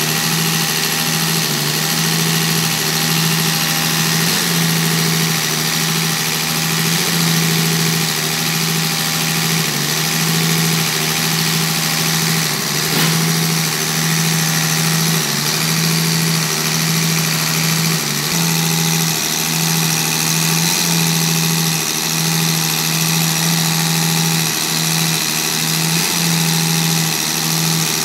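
Diesel injection pump test bench driving a six-cylinder in-line Mercedes injection pump: a steady machine hum with a hiss over it. The pump is delivering fuel into the bench's graduated measuring glasses during calibration.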